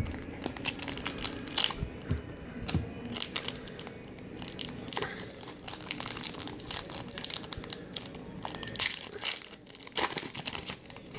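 A foil trading-card pack being torn open and crinkled by hand, a busy run of sharp crackles and rustles.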